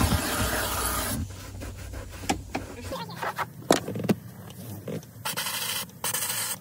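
Handheld steam cleaner's wand jetting steam with a loud hiss that stops about a second in, over a low hum that ends about three seconds in. Scattered clicks and knocks follow, then two more short hisses near the end.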